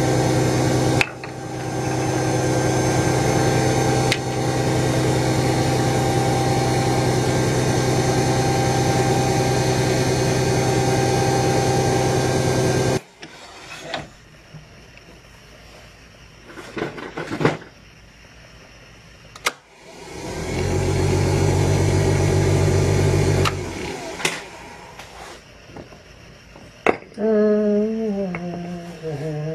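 Small bench lathe's motor running with a steady hum, stopping abruptly about 13 seconds in, then running again for about three seconds from about 20 seconds in. A few clicks and knocks in between, and a person humming a rising and falling tune near the end.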